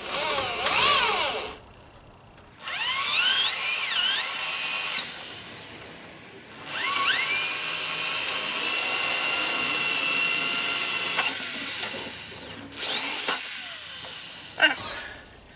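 Electric hand drill with a 1/8-inch bit drilling out rivets, run in four bursts. Each time the motor whine rises as it spins up, then holds steady while the bit cuts; the longest run lasts about six seconds.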